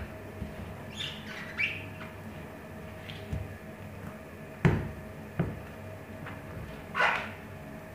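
Trainers stepping and stomping on orange peel on a hard floor: a few dull thuds about midway, with short high chirping squeaks about a second in and a brief scuffing burst near the end.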